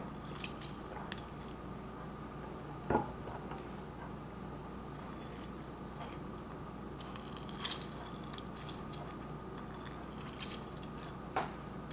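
Faint squishing and dripping as a mandarin is squeezed by hand over a bowl of marinade, with a few light clicks.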